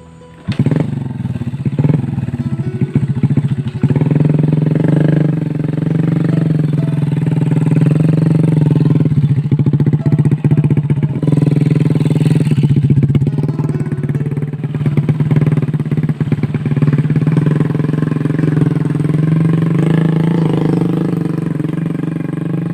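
Small motorcycle engine running under load, a steady drone that rises and falls a little as the throttle changes. It cuts in abruptly about half a second in.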